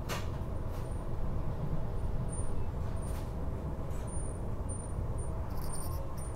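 Electric suburban passenger train running at speed, heard from inside the carriage: a steady low rumble of wheels and running gear, with a few faint clicks.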